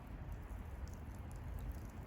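Wood bonfire burning, with sparse faint crackling pops over a steady low rumble.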